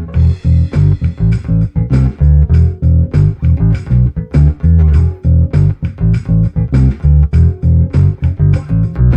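Fender P/J electric bass played through a Traynor YBA300 all-tube bass head, a miked cabinet blended with the amp's DI signal, over a drum loop from a pedal. It plays a rhythmic bass line of plucked notes, with drum hits keeping time.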